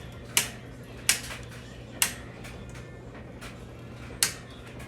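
Four sharp metallic clicks and clinks, spaced about a second apart with the loudest near the end, from handling the hardware of a metal lighting truss being assembled.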